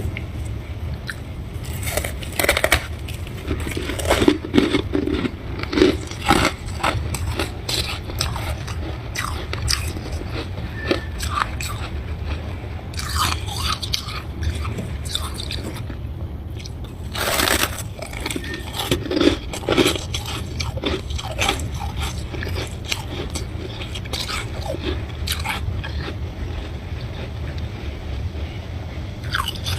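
A person biting and chewing a crunchy chunk of freezer frost, with irregular crunches and scraping bites coming in clusters, over a steady low hum.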